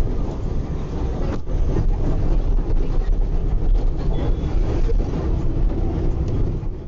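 Steady low rumble of a moving bus's engine and road noise, heard from inside the bus, with a momentary break about a second and a half in.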